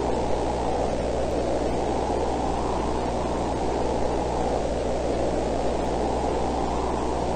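Steady static hiss, strongest in the low-middle range, over a constant low hum.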